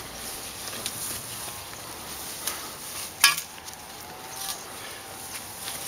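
A metal stepladder being climbed: light scuffs and one sharp clack about three seconds in, over a steady hiss.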